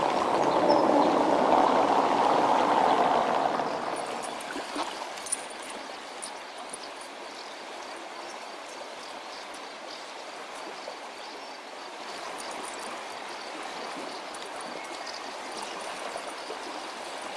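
Flood-swollen river water rushing, loud for the first few seconds and then dropping to a quieter, steady flow.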